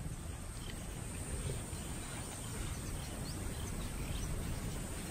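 Bush ambience: a steady low rumble and a thin high steady hiss, with a few faint short bird chirps.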